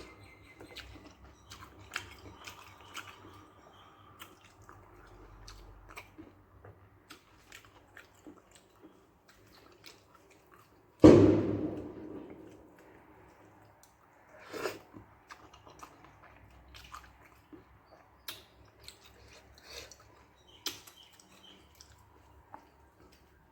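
Close-up eating sounds: a person chewing rice and curry, with small wet mouth clicks and smacks. About eleven seconds in comes one sudden loud thump that dies away over about a second, and a smaller one a few seconds later.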